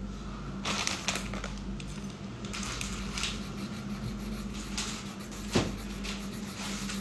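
Hands handling small objects on a desk: brief rustling and scraping sounds, with one sharp knock about five and a half seconds in, over a steady low hum.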